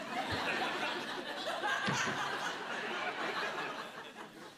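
Studio audience laughing, swelling in at the start and fading away over the last second, with a couple of low thumps under it.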